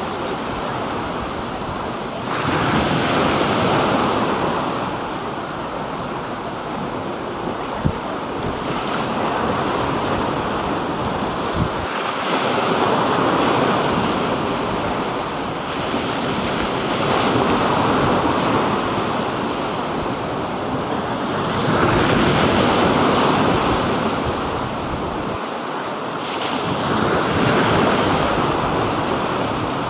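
Black Sea waves breaking on the shore, the surf swelling and falling back every four to six seconds, with wind buffeting the microphone and a couple of brief knocks.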